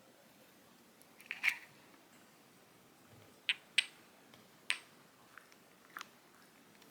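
A short rustle, then a handful of sharp, separate clicks and taps of small objects being handled.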